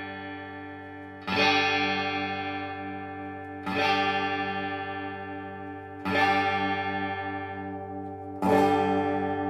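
Electric guitar on its middle pickup, played clean through a small amp: a G chord strummed four times, each left to ring and fade before the next. The tone control is being slowly rolled back between strums.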